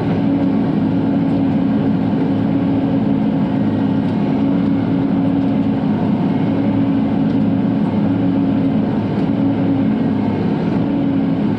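Bobcat E42 mini excavator's diesel engine running steadily under working load, heard from inside the cab, while the machine digs out a bush stump.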